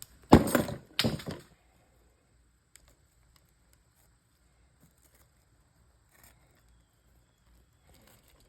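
Two hard whacks on a part of an old TV set being broken apart for scrap, less than a second apart, then a few faint light knocks.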